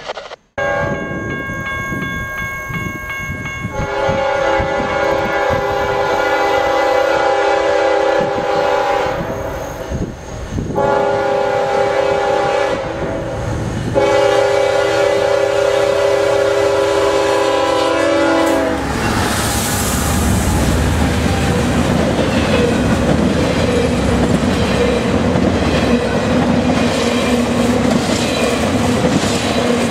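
A CSX freight locomotive sounds its multi-note air horn in three long blasts for the grade crossing as it approaches. The horn stops about 19 seconds in, and the loud rumble of the passing train and the clickety-clack of intermodal cars' wheels over the rail joints follow.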